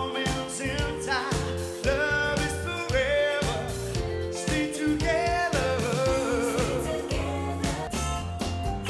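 Male vocalist singing live into a microphone over musical accompaniment with a steady beat, his held notes wavering with vibrato.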